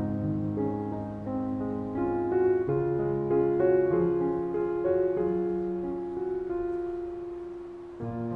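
Calm, slow classical piano music: sustained notes and chords, with one note held and fading away shortly before a new chord near the end.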